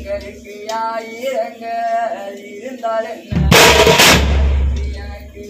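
A Tamil oppari funeral lament: one voice sings a drawn-out, wavering line, then a stick-beaten side drum comes in loudly for about a second and a half before the voice returns.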